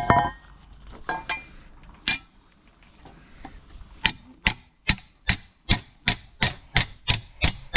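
A ringing metal clank as the tools and bracket are set on an iron shoe last, then a few light metal clinks. From about four seconds in there is a steady run of hammer blows, a little under three a second, on a metal bracket being shaped over the last.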